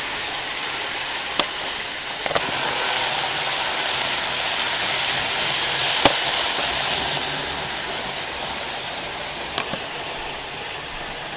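Model train running on its layout: a steady rushing whir of the motor and wheels on the track, broken by a few sharp clicks, the loudest about six seconds in.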